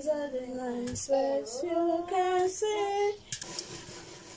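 A high voice singing a short tune of held, gliding notes, stopping about three seconds in; a few faint clicks follow.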